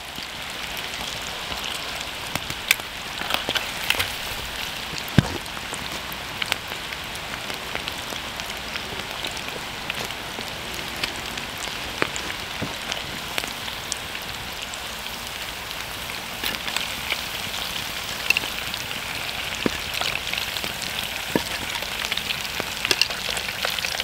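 Battered squid deep-frying in a pot of hot oil: a steady crackling sizzle with scattered sharp pops, growing a little louder over the last several seconds.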